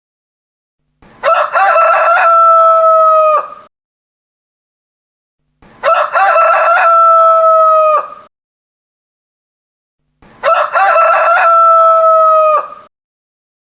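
Rooster crowing: three full crows, each about two and a half seconds long and about four and a half seconds apart, each ending in a long held note that drops off at the end.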